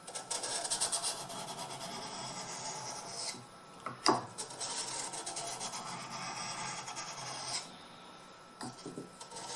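Scandi-ground carving knife blade being stroked along a Japanese water stone: a steady rasping scrape, with a short pause about three seconds in, a sharp tick just after, and softer strokes near the end.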